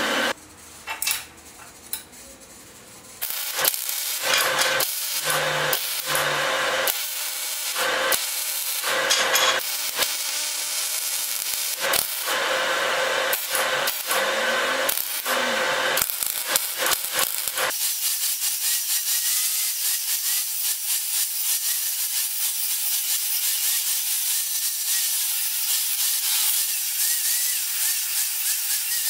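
A wire-feed (MIG) welder laying short welds on steel, heard as a series of separate crackling bursts. About two-thirds of the way in, an angle grinder with a thin cut-off wheel takes over, running steadily as it cuts through a steel piece held in a vise.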